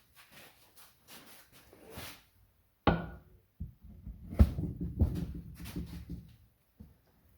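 An old cast iron bench vise being reassembled: its sliding jaw is fitted into the body and the lead screw turned into its threads. There is light handling noise, a sharp metal knock about three seconds in, then a run of clunks and rattles.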